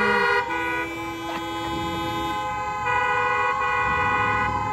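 Hunting hounds howling in chorus, several long drawn-out howls overlapping, one rising, holding and then falling away near the end.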